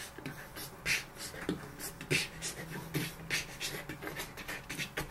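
Human beatboxing into the webcam microphone: a steady beat of short sharp hissing snare and hi-hat strokes over low mouth-made thumps, about two a second.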